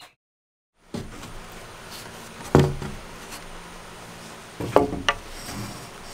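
Wooden knocks of a 2x4 board bumping against roof truss framing: one sharp knock about two and a half seconds in, then two or three more close together near five seconds, over steady outdoor background noise. The first second is silent.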